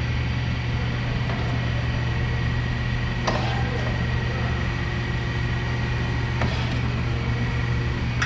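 CAT Mitsubishi FBC18N electric forklift running as it drives and lowers its forks: a steady electric hum with a thin high whine. Two sharp clicks come about three and six and a half seconds in, and the whine stops at the second.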